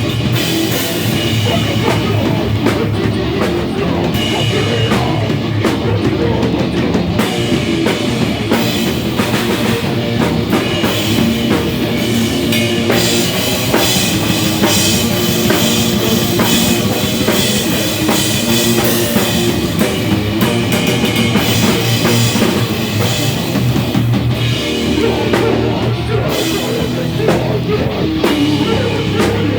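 A loud live rock band playing: distorted electric guitars over a full drum kit, with a heavy-metal edge, recorded in the room.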